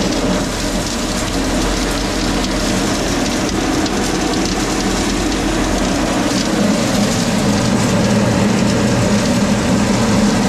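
Truck-mounted salt spreader running, its conveyor pushing rock salt out of the discharge chute so that it falls onto a salt pile, over the running truck engine. The noise is loud and steady throughout.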